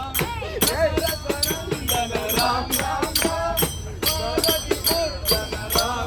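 Music with a singing voice over quick, jingling percussion like a tambourine, struck in a steady rhythm.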